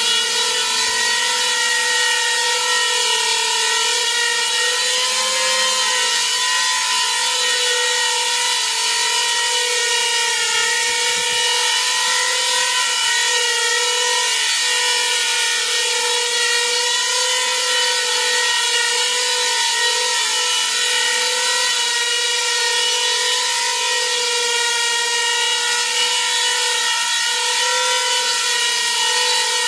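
Small coaxial copter's two counter-rotating rotors and their motors running steadily in a hover: an even whirring whine whose pitch wavers slightly now and then.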